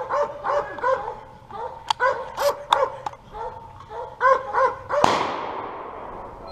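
Hunting dogs barking rapidly and steadily at a squirrel in the tree. About five seconds in comes a single sharp gunshot that echoes as it fades.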